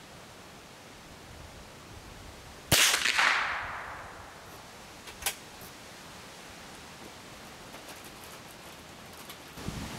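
A single gunshot fired through a chronograph, a sharp crack about three seconds in followed by about a second of echo fading away; the chronograph clocks the shot at 1288, a supersonic velocity in feet per second. A small click follows a couple of seconds later.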